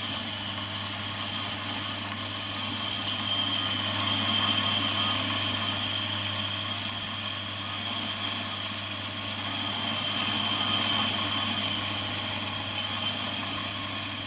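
Warco metal lathe running steadily while a 21mm twist drill cuts through a spinning aluminium blank, no longer chattering, with a constant high-pitched whine over a low hum.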